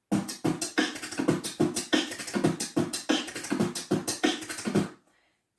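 A beatboxer performing a groove in 7/8 time: mouth-made kick, snare and hi-hat sounds in a quick, dense pattern, stopping abruptly about five seconds in.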